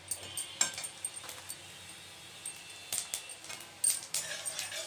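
Whole cumin seeds frying in hot mustard oil in a metal kadai, sizzling with irregular sharp crackles and pops.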